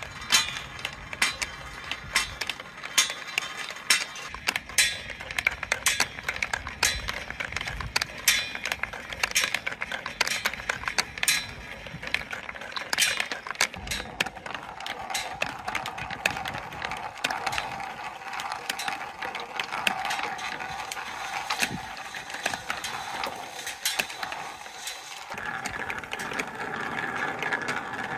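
Plastic balls rolling and clacking down a marble run's aluminium channel and track pieces, with rapid clicks of balls knocking against each other and the track. About halfway through, a steady rolling drone takes over as balls roll inside a large clear plastic tube, and a higher tone joins near the end.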